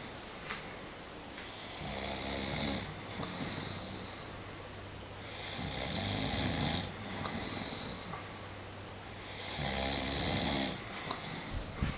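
A sleeping person snoring: three loud snores about four seconds apart, each a drawn-in snore followed by a softer breath out.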